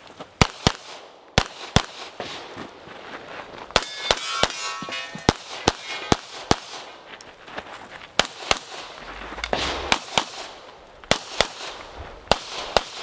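Handgun fired in rapid succession, mostly in quick pairs of shots, with short pauses between groups.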